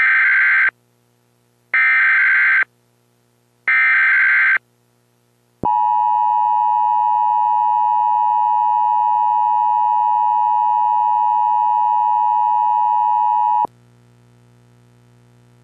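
Emergency Alert System alert: three short bursts of SAME digital header data about two seconds apart, then the steady two-tone EAS attention signal sounding for about eight seconds and cutting off abruptly. It heralds a flash flood warning.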